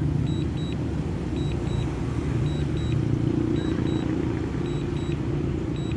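Strong wind buffeting the microphone, a steady low rumble, with faint short high beeps repeating every fraction of a second.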